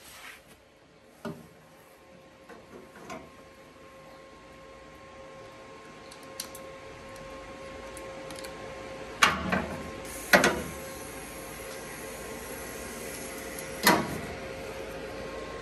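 A few scattered knocks and clunks, with three louder sharp knocks in the second half, over a steady hum that slowly grows louder. No welding arc is running.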